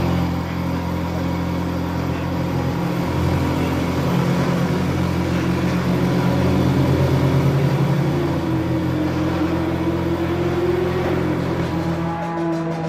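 Race car engines running with a steady low drone.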